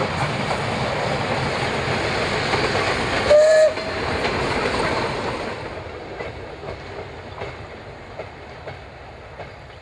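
Steam locomotive hauling a passenger train runs past close by with a loud, even running noise. About three and a half seconds in it gives one short whistle blast, the loudest sound here. The train noise then fades as it draws away, with faint clicks of wheels over rail joints.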